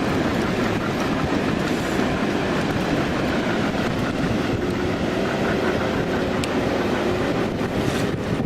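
Small boat's motor running steadily, a constant rumble with water rushing along the hull.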